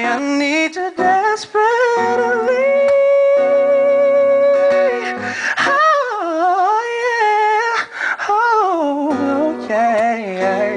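Male singer's voice with acoustic guitar in a live R&B ballad: a long held note, then notes that slide and waver with vibrato.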